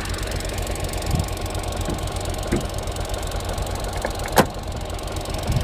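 Opel Corsa D 1.4-litre 100 PS petrol engine idling warm, with the fuel injectors ticking, a tick the owner holds to be normal. A single sharp click about four seconds in.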